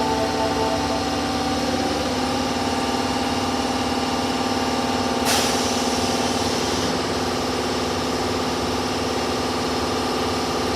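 Osaka Metro Tanimachi Line 22 series subway train standing at the platform, its equipment giving a steady hum, with a short hiss of air about five seconds in.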